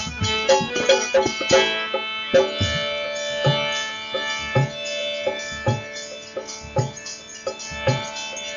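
Instrumental break of a Hindi folk song: a melody of quick notes, then held notes, over a low drum beat about once a second.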